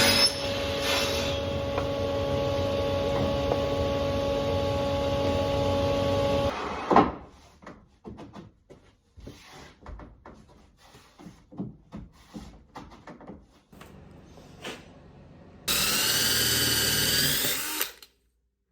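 A power tool runs steadily with a constant whine for about six and a half seconds, then stops. Scattered knocks and taps follow. Near the end a second, shorter power-tool run is heard, its pitch wavering up and down.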